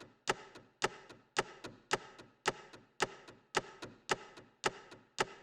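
A steady tick-tock rhythm of sharp clicks: a loud click just under twice a second, each followed by a fainter one.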